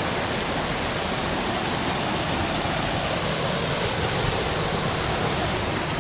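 Steady rush of water from the Tanew river tumbling over its rock steps and small waterfalls.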